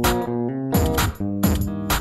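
Background music with guitar and sharp percussive hits about twice a second.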